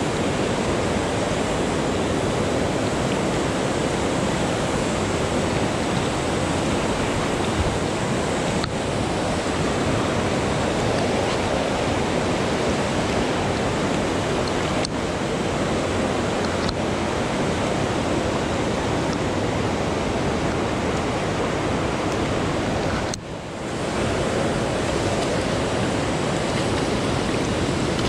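Rushing mountain river: a steady rush of white water over rocks, dipping briefly about 23 seconds in.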